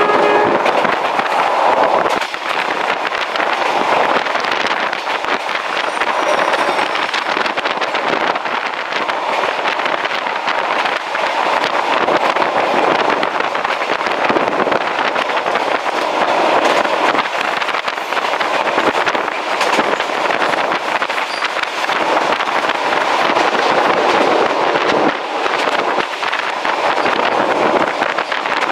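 Moving passenger train heard from an open carriage window: a steady rushing noise with wheels clattering over the rails in frequent small knocks.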